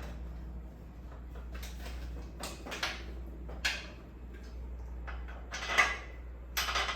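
A handful of short metal knocks and scrapes as a mounting bracket is slid and lined up on a miter saw stand, the loudest near the end.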